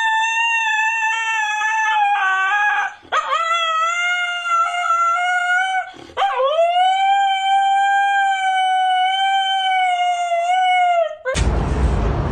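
A husky howling: three long, held howls in a row, each swooping up in pitch at the start and then holding steady, with short breaths between. Near the end a steady rush of outdoor street noise takes over.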